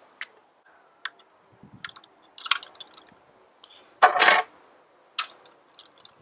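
Handling noise while a catapult is reloaded with a lead ball and drawn: scattered small clicks and taps, with one louder brief rustle about four seconds in.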